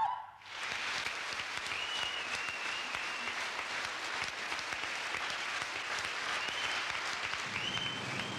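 Audience applauding at the end of a live song, starting about half a second in and running on as steady clapping.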